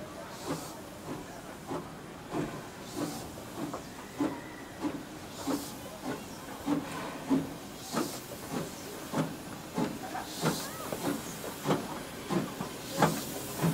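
Rio Grande Southern No. 41, an 1881 Baldwin 2-8-0 steam locomotive, running with a regular beat of a little under two strokes a second over a steady hiss of steam.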